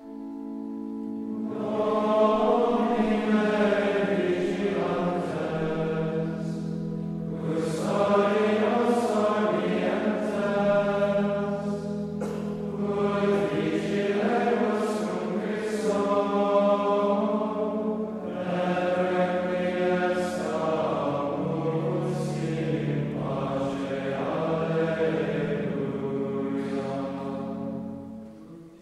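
A choir singing Latin plainchant for the Compline office, in phrases of a few seconds, over sustained organ chords.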